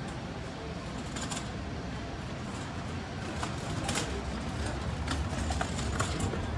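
City street ambience in a narrow alley: a steady low hum of the surrounding city with passers-by's footsteps and a few scattered clicks and knocks, the loudest about four seconds in.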